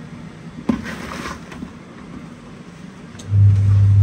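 A knock and the scrape of a plastic dustpan scooping soil and debris. About three seconds in, a loud, steady low hum starts abruptly and keeps going.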